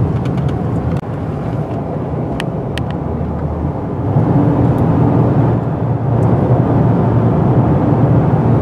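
Car driving, a steady low engine and tyre rumble heard from inside the cabin, growing louder about four seconds in.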